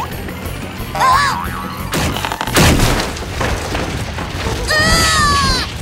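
Cartoon sound effects over background music: a pumpkin-laden wooden cart rattling along and crashing with a boom about two and a half seconds in. Short sliding pitched effects come before the crash, and a falling pitched sound follows near the end.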